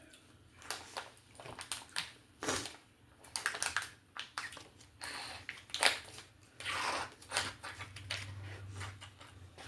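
Kitchen handling noises while an omelet is cooked: scattered clicks, taps and scrapes of utensils and cookware.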